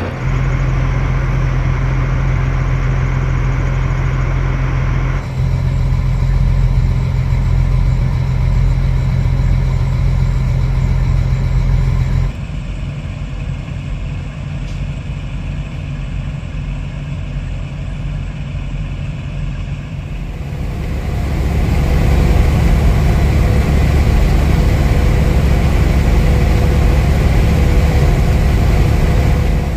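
Steady low hum of idling diesel trucks. About two-thirds of the way in it gives way to the louder, steady drone of a Kenworth W900 semi truck's diesel engine and road noise heard inside the cab while driving.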